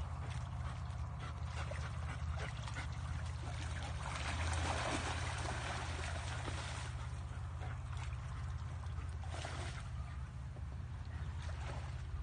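Muddy water splashing and churning as a dog and a duck tussle in it, with animal noises from the dog, over a steady low hum. The water noise swells about four seconds in and again near the end.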